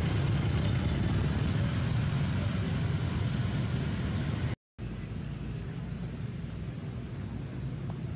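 Steady outdoor background noise: a low rumble and hiss like wind on the microphone or distant traffic, with a few faint short high chirps. The noise drops out briefly about four and a half seconds in and comes back quieter and thinner.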